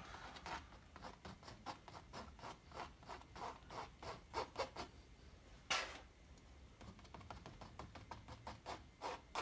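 Scissors blade scraping and dabbing paint onto a canvas in quick short strokes, about three a second, with one louder brief scrape a little past halfway.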